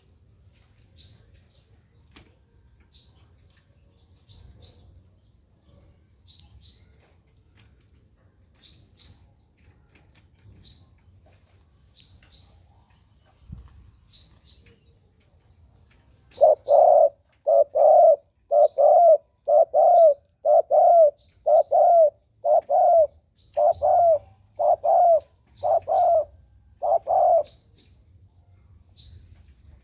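A sunbird gives short, high double chirps every second or two. From about halfway a spotted dove coos a run of about a dozen low notes, roughly one a second, louder than the chirps.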